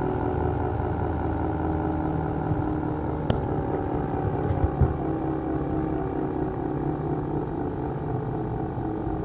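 ACA P50 outdoor tornado warning siren sounding a steady tone with several pitches held together, slowly fading. A sharp click about three seconds in and a few knocks a second later.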